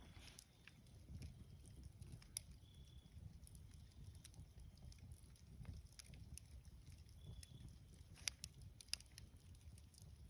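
Campfire crackling faintly: a few sparse sharp pops over a low rumble, with short faint high-pitched chirps now and then.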